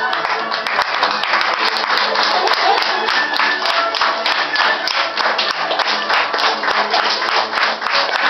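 Audience clapping, dense and irregular, over background music; the clapping swells in at the start and keeps going.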